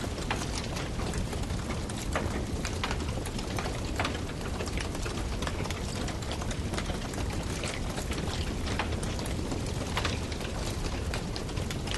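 Firewood burning with a steady low rush of flame and frequent sharp crackles and pops scattered irregularly throughout.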